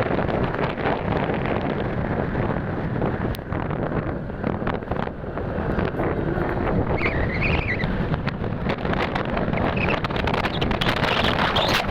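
Wind buffeting the microphone over the steady running and road noise of a motorcycle on the move. A brief wavering high sound comes in about seven seconds in.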